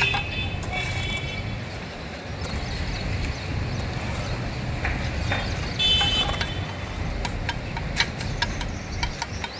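A mason's steel trowel tapping and clinking on bricks being laid and levelled. Scattered sharp taps, with two short metallic rings, one at the start and one about six seconds in, over a steady low rumble of background noise.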